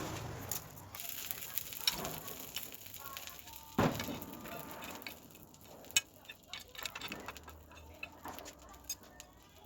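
Irregular light clicks and knocks, with one sharper knock about four seconds in that rings briefly.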